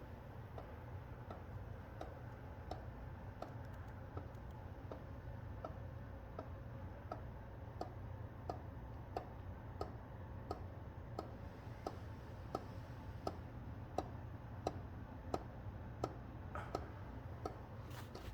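Ceiling fan running with a steady low hum and a regular click about every two-thirds of a second, the clicks growing a little louder in the second half. This ticking is the strange noise the fan is making.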